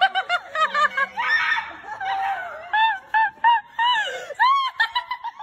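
A woman's high-pitched laughter, quick giggles breaking into squeals and a short shriek about a second and a half in.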